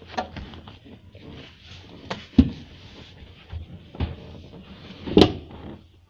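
Knocks and thumps of a Renault Kwid's rear seat cushion being pulled free and handled, with two louder thumps about two and a half and five seconds in.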